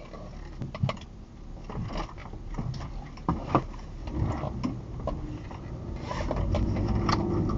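Engine and road rumble heard inside a moving car, with scattered short knocks and rattles. It grows louder over the last few seconds.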